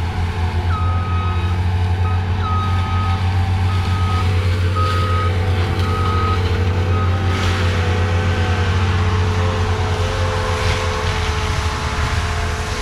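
A heavy machine's backup alarm beeps about six times over the steady drone of its engine, then stops partway through; a wavering whine rides along with the engine.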